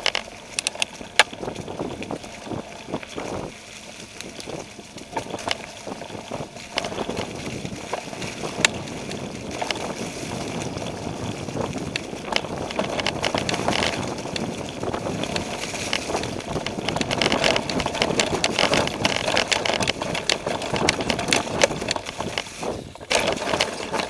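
Mountain bike rolling down a trail covered in leaf litter: tyres churning through the leaves, with frequent clicks and knocks from the bike rattling over hidden rocks, sticks and holes. It gets louder about a third of the way in.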